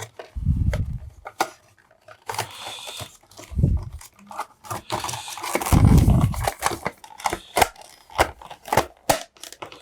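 Hard plastic clicks and knocks with a few heavy low thuds, as the power supply's lid is handled and fitted back on over its wiring. The loudest thud comes about six seconds in.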